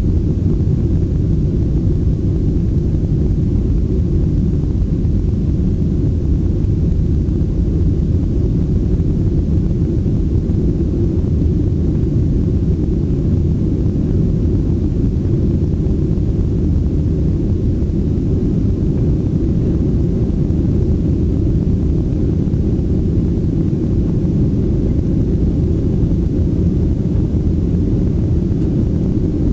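Steady low rumble of a Boeing 737-800 in flight, heard inside the passenger cabin: jet engine and airflow noise, even and unchanging.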